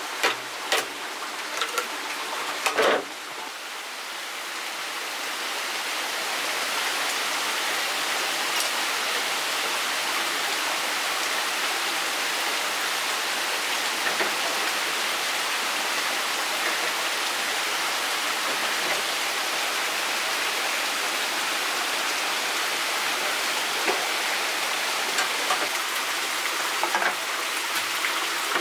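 Steady rushing of running water, swelling in over the first few seconds and then holding even, with a few sharp knocks near the start.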